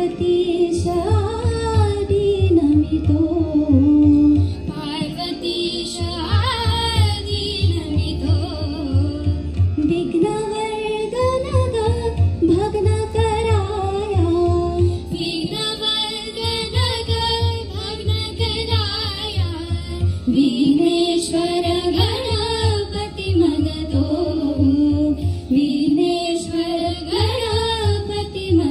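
A woman and two girls singing a Marathi nandi, the invocation song of a musical play, in one melody line over accompaniment with a steady low beat.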